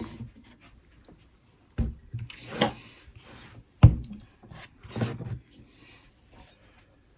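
Rolling pin working shortbread dough on a worktop: four knocks spread over a few seconds, with soft rubbing between them.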